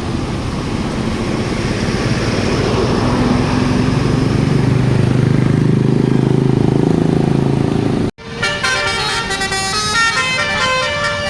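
A bus's engine rumbling and growing louder for about eight seconds. After an abrupt break, a basuri telolet horn, a multi-tone musical air horn, plays a fast melody of short notes.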